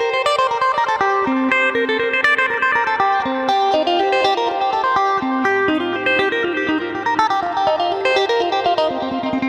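Electric guitar played through a Boss GT-3 multi-effects processor preset: a melodic line of quick picked single notes, a few per second, that ring into one another.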